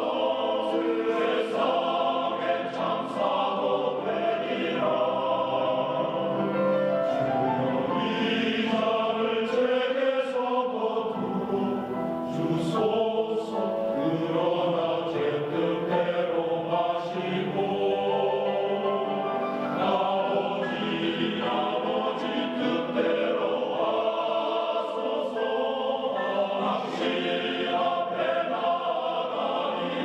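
Background choral music: a choir of many voices singing together, with no break.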